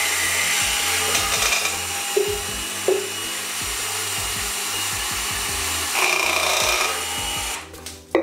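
Dremel VERSA cordless power scrubber spinning a long bristle bottle brush inside a wet, soapy stainless steel tumbler, the bristles scrubbing against the metal walls. It runs steadily and stops near the end.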